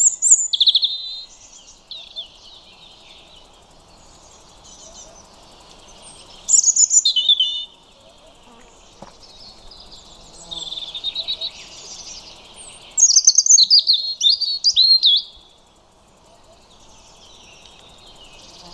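European robin singing: four bursts of high, fast-changing warbling phrases separated by pauses of a few seconds, the last and loudest near the end, over faint background noise.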